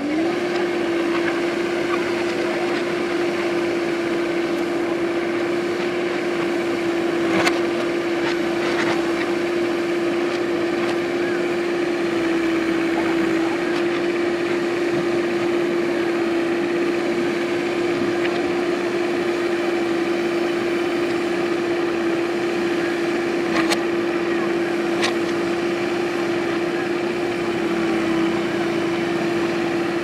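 JCB 3DX backhoe loader's diesel engine running at steady high revs while the backhoe arm digs. The engine climbs in pitch right at the start and then holds one steady drone. A few sharp knocks come about a third of the way in and again later.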